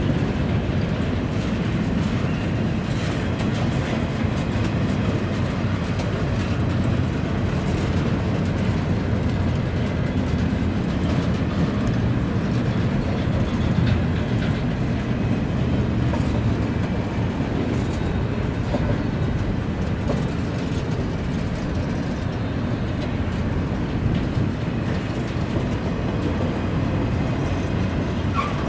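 Freight train of empty intermodal well cars rolling past at a crossing: a steady rumble of steel wheels on rail.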